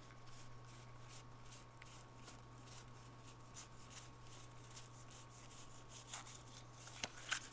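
Faint rapid flicks and slides of 1992 Fleer baseball cards being thumbed through one by one in a hand-held stack, card edges snapping past each other, with a few louder flicks near the end. A steady low hum runs underneath.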